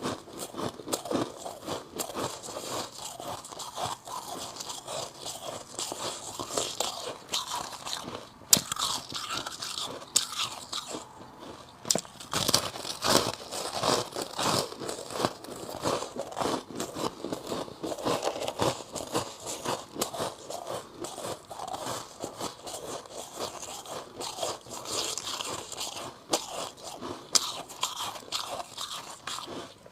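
A person biting and chewing chunks of freezer frost ice close to the microphone: continuous irregular crunching, with a few sharper snapping bites.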